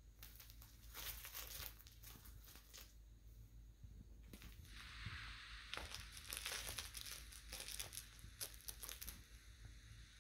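Faint crinkling, rustling and scratching as a cat claws, bites and bunny-kicks a plush catnip-filled carrot kicker toy, busier in the middle stretch.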